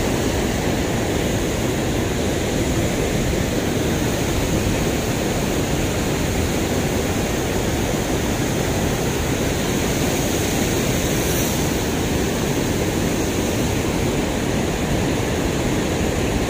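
Water rushing over a river weir: a loud, steady, even rush of falling and churning water.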